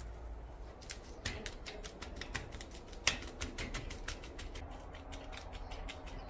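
Handling noise: a run of small clicks and rubs as a gloved hand turns an old wooden tool handle with a rusty iron ferrule and shank. There is one sharper click about three seconds in, and the clicks come thicker after it.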